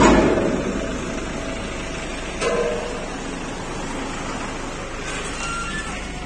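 Street traffic: vehicles driving past close by, loudest in a swell at the start that fades over about a second, with a smaller rise a couple of seconds in.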